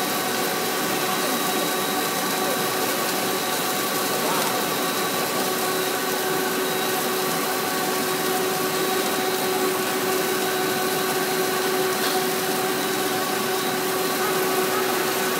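Puffed-snack extruder running steadily: a constant machine noise with a steady motor whine.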